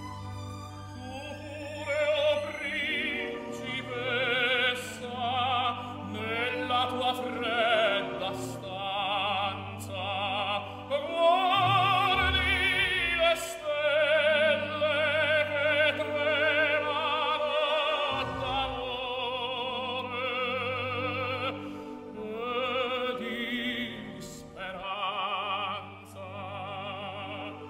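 Background music: an opera singer holding long notes with wide vibrato over an orchestral accompaniment.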